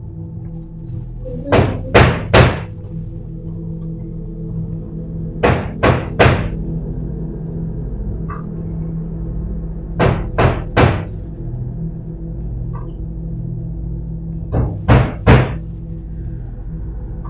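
Knocking in sets of three quick, loud knocks, repeated four times about four seconds apart, over a low, steady drone of background music.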